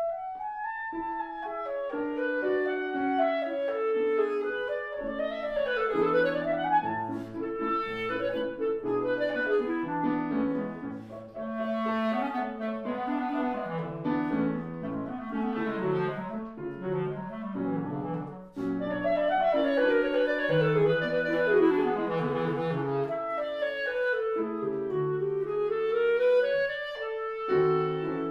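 A clarinet and a piano playing together: the clarinet carries the melody with quick runs sweeping down and back up, over piano accompaniment, with a brief break about two-thirds of the way through.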